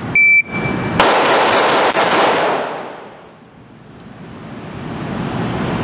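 A shot timer beeps once, and about a second later a Sig Sauer P365 XL 9mm pistol fires six quick shots in about two seconds, about a fifth of a second apart, echoing in an indoor range.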